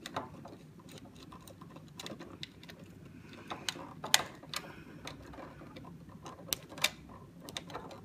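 Screwdriver clicking and scraping on the screw terminals of a plastic smart wall switch as the neutral wire is fitted: irregular small clicks, with a few sharper ones.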